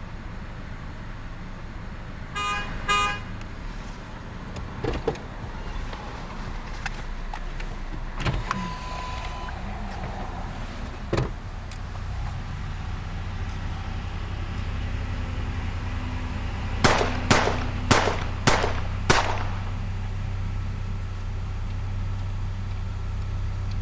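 A car engine running steadily, with two short beeps about two and a half seconds in and a few dull thumps. Later, five sharp bangs come in quick succession, the loudest sounds here.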